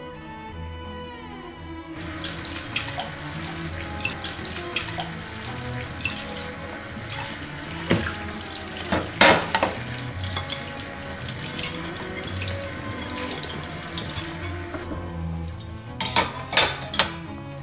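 Kitchen tap running into a stainless steel sink as a plate is rinsed by hand, with a few clinks along the way. The water starts about two seconds in and stops shortly before the end. Then a few sharp knocks as a plate and a wooden board are stood in a wire dish rack.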